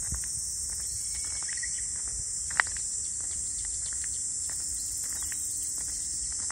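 Steady high-pitched chorus of summer insects, with faint scattered ticks and one sharp click about two and a half seconds in.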